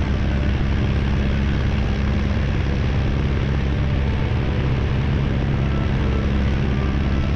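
De Havilland Tiger Moth biplane's piston engine and propeller running steadily in level flight, with a steady rush of wind over the wing.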